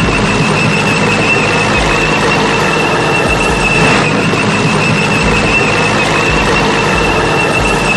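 Vehicle engine sound effect, dubbed over the picture: a loud, steady engine noise with a constant high-pitched whine. It starts and cuts off abruptly.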